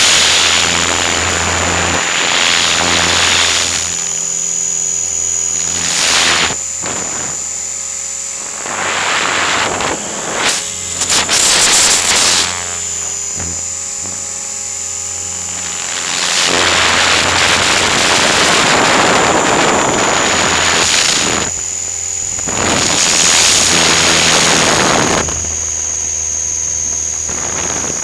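Align T-Rex 500 electric RC helicopter in flight, heard from a camera on its nose: a steady high whine from its motor and drivetrain, with rushes of rotor wash and wind noise that swell and fade several times as it manoeuvres.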